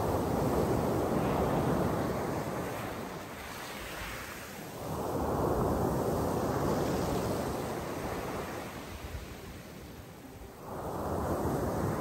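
Sea waves breaking and washing up a pebble beach: three surges of surf, each swelling and then fading, about five to six seconds apart.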